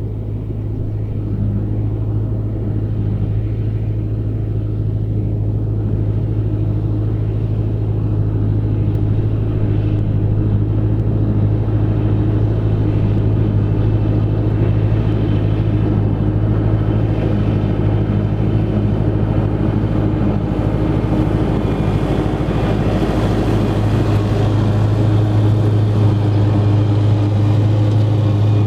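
Massey Ferguson 6470 tractor running steadily under load with a Fendt big baler working behind it: a steady low engine drone that grows gradually louder.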